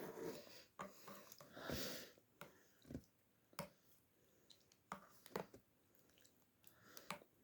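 Quiet close-up eating sounds of instant-style vermicelli: soft chewing and mouth noises with scattered sharp clicks, and two short breathy rushes, one at the start and one about two seconds in.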